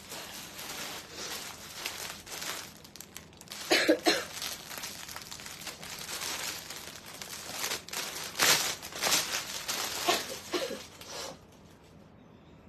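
Clear plastic garment packaging crinkling and rustling as a top is pulled out of it. There are louder bursts about four seconds in and again around eight to nine seconds, and the sound stops shortly before the end.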